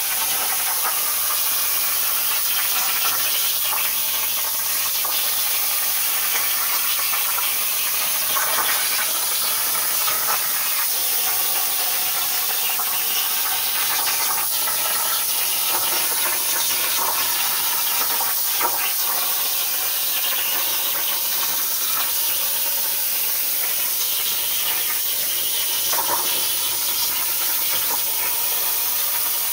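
CNC plasma cutter's torch cutting through sheet metal: a steady hiss of the arc and its air, with a short crackle now and then.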